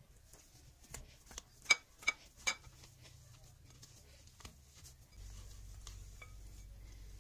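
Hands kneading soft, sticky dough in a glass bowl, with faint squishing and handling noises. Three sharp, ringing clinks of the glass bowl come close together about two seconds in. A steady low hum starts about five seconds in.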